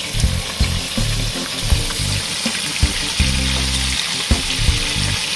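Pieces of salted fish (makayabu) sizzling steadily as they fry in hot oil in a frying pan, with background music underneath.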